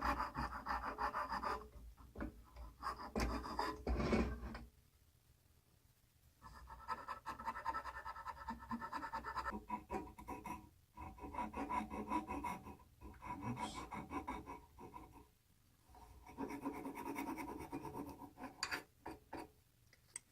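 A hand tool scraping and carving soft wood in quick repeated strokes, in several spells with short pauses between.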